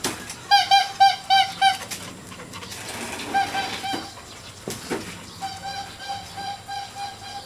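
A bird calling in runs of short, clear repeated notes, about four a second, in three bursts with the last one softer and longer. A couple of sharp knocks fall between the runs.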